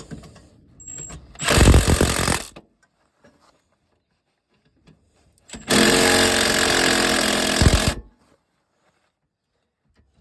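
Impact wrench running in the mounting bolts of a rear wheel hub bearing in two bursts: a short one about a second and a half in, and a longer one of about two seconds past the middle, hammering over a steady motor whine.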